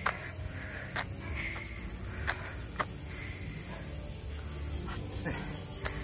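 Cicadas in the park trees, a steady high-pitched drone, with a few faint clicks.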